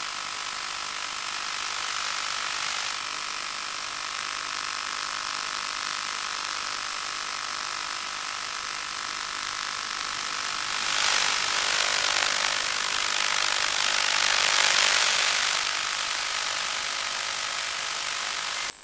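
Hissing static from an analog FPV video receiver's audio, with a few steady whining tones in it. The hiss swells louder for several seconds in the middle and then cuts off abruptly near the end, when the diversity ground station switches receivers. This noise comes with the weak, black-and-white signal from the ReadyMade RC patch-antenna receiver.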